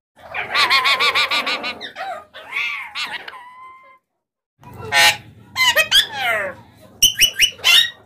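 Alexandrine parakeets calling: a fast warbling chatter for the first two seconds and a few shorter calls, then after a short silence a run of loud, harsh screeches that fall in pitch, ending in quick clipped chirps.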